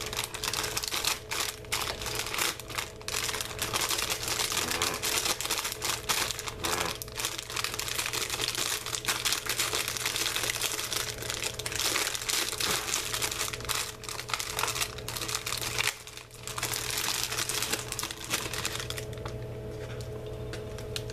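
Thin clear plastic cookie wrapper crinkling continuously as it is worked off a plastic tray of cookies, with irregular crackles; it eases off near the end.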